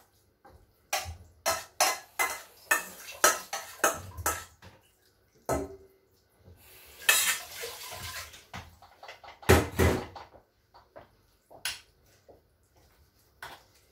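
A spoon scraping and knocking against a dish as meat filling is spooned out and spread over a layer of mashed potato: a run of short clinks and scrapes, with a longer scrape and then the loudest clatter about ten seconds in.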